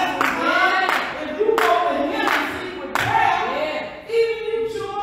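Singing voices with hand clapping on a steady beat, about one clap every 0.7 s through the first three seconds.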